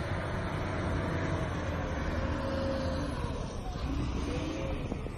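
Wheel loader's diesel engine running, its pitch dipping and rising again a little before the end.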